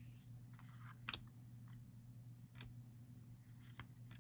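Faint handling of baseball cards: a few short swishes and light clicks as cards are slid and flipped, over a low steady hum.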